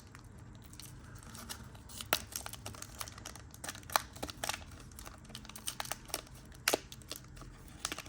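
A Court Kings trading card pack's plastic wrapper is torn open and crinkled, with scattered sharp crackles.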